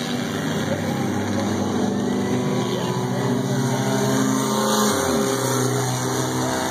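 Several race car engines running at once, with one engine note sliding down in pitch about five seconds in.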